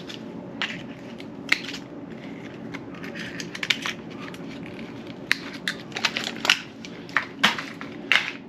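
Packaging crinkling and rustling as a new bike brake is unwrapped, with scattered sharp clicks and taps of the parts being handled, more of them in the last few seconds.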